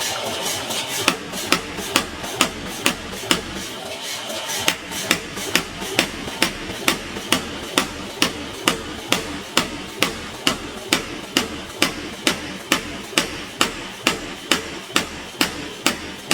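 Blacksmith's hammer striking metal on an anvil while forging, in a steady rhythm of a little over two blows a second, with a short break about three and a half seconds in before the hammering resumes.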